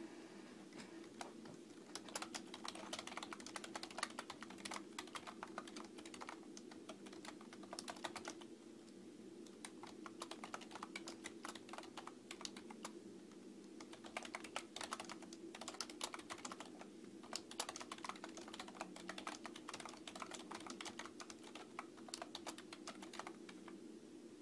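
Typing on a desktop computer keyboard: quick runs of key clicks broken by short pauses, over a steady low hum.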